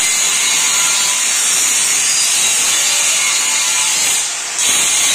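Angle grinder grinding a steel gate frame: a loud, steady, high-pitched hiss, dipping briefly about four seconds in.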